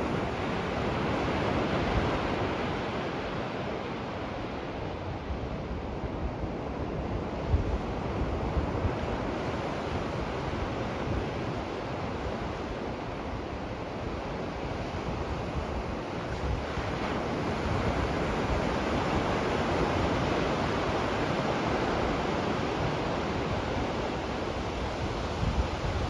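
Ocean surf breaking and washing up a flat sandy beach: a steady rush that swells louder as waves break, most of all early and through the second half. Wind buffets the microphone with a low rumble now and then.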